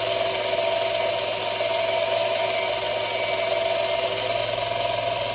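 Parkside bench grinder running steadily with a CBN wheel while a spanner is held against it and ground freehand to sharpen its edge: a constant motor hum under an even grinding hiss.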